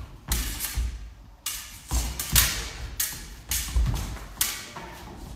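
Sabre bout: fencers' feet thumping on a wooden floor and steel sabre blades clashing, in a quick run of about eight sharp hits, each with a brief ring.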